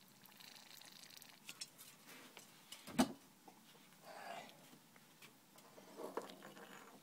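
Faint handling noises of a cleaning cloth and a small plastic laser pickup unit, with scattered light clicks and one sharp knock about three seconds in.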